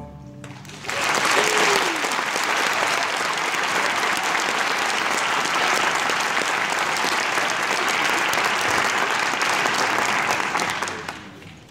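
A school string orchestra's final chord dies away, and about a second in a large audience breaks into applause. The clapping runs steadily for about ten seconds, then fades out near the end.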